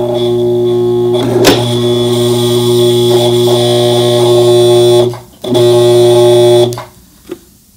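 Brother ST371HD sewing machine motor humming steadily under the foot pedal with no stitching rhythm: the size 16 needle is failing to penetrate the 3.5 oz leather. A sharp click comes about one and a half seconds in. The hum stops briefly at about five seconds, runs again for just over a second, then cuts off.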